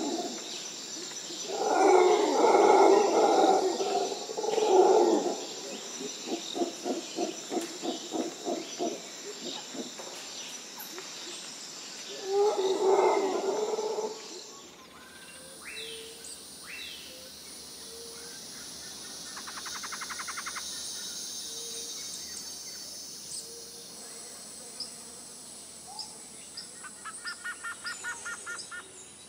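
Nature soundscape of chirping insects and bird calls, with several louder animal calls in the first half. About halfway through the background changes to a higher, thinner insect drone with short trills.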